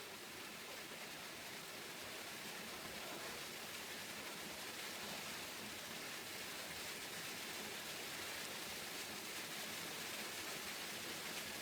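Steady rain falling, an even hiss that grows slightly louder over the stretch.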